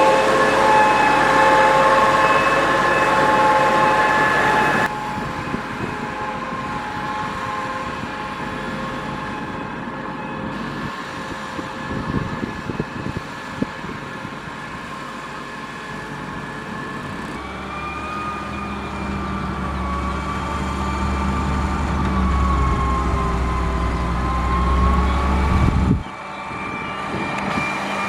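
Heavy diesel engine of a Caterpillar 140H motor grader running under load, with a steady whine over the rumble. The sound changes abruptly three times. From about 17 s a deeper drone carries a slowly wavering whine.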